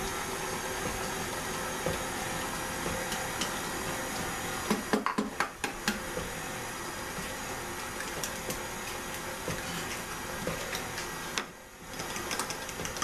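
Electric stand mixer's motor running steadily as it beats cheesecake batter, with a few sharp clicks about five seconds in. The motor drops out briefly near the end, then runs again.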